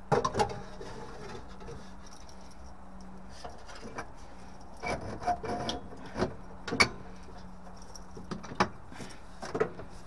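Metal boiler parts being handled: scattered knocks, scrapes and rattles as the fan hood and flue elbow are worked back into the boiler's sheet-metal casing, over a faint steady low hum.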